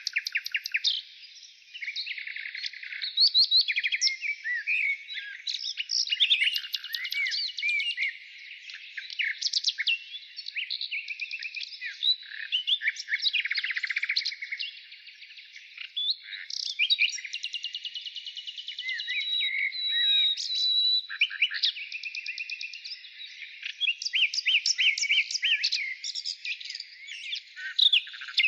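Birds singing and calling without pause: a dense, varied run of rapid trills, chirps and short gliding whistles.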